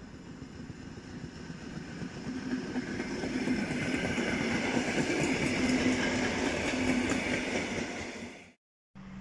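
Electric multiple unit in Koleje Dolnośląskie livery passing through a station: a rumble with a steady hum and a higher whine that grows louder as it approaches and is loudest as it runs past. The sound cuts off suddenly near the end.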